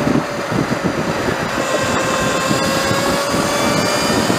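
Sur Ron electric dirt bike on a 72-volt battery near its top speed: the motor and drivetrain give a steady high-pitched whine, with heavy wind buffeting on the microphone.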